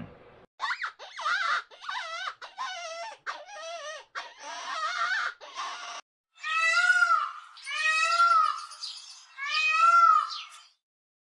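High-pitched animal cries: a run of short, wavering whines, then three long calls that each rise and fall in pitch.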